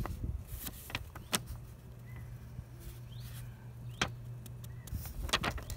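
Paper instruction booklet being handled, giving a few sharp crisp rustles and clicks over a steady low hum, with a few faint short rising bird chirps.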